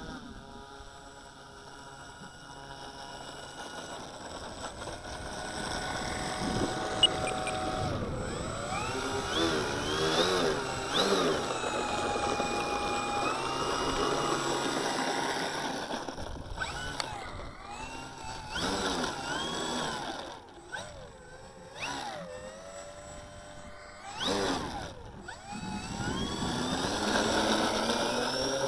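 Electric motors and propellers of a small radio-controlled aircraft whining, the pitch rising and falling again and again as the throttle changes.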